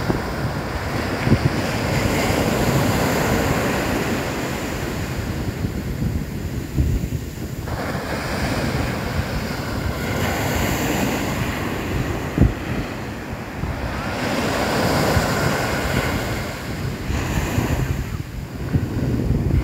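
Small sea waves breaking on a sandy beach and washing up the shore, surging three times, with the strongest surge starting suddenly about eight seconds in. Wind buffets the microphone with a low rumble throughout.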